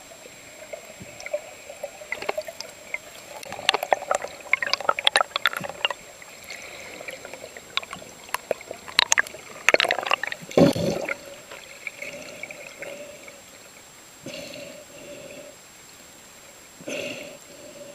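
Underwater sound of moving water and bubbling, with irregular sharp clicks that come in clusters about four seconds in and again around nine to ten seconds in, and a louder rushing swell just past the middle.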